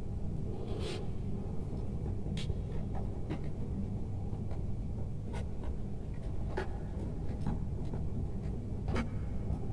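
Light clicks and rustles of plastic-insulated electrical wire being handled and pushed into a plastic junction box, scattered irregularly over a steady low hum.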